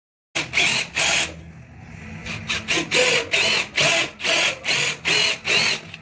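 DeWalt 20V cordless drill driving screws into a mortise lock's faceplate, the motor run in short repeated bursts. Three bursts come first, then a brief lull about a second and a half in, then steady bursts about two or three a second.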